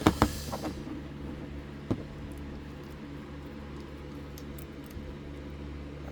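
A few sharp clicks and taps of hitch locks and picking tools being handled, the loudest in the first second and one more about two seconds in, over a steady low hum.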